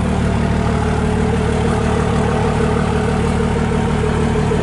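A vehicle engine idling steadily, a constant low hum with a steady higher tone over it.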